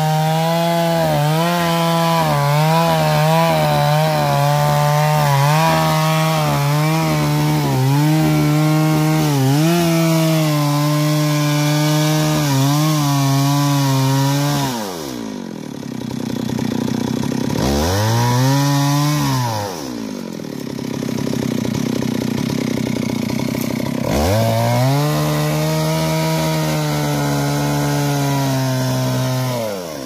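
Two-stroke chainsaw cutting wood at full throttle, its engine pitch wavering as the chain bites. About halfway through it drops to idle, revs up briefly once, drops back, then goes back up to high revs near the end.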